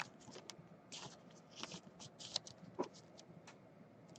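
Trading cards being handled, faint rustling and light clicks of card stock and plastic sleeves, scattered irregularly.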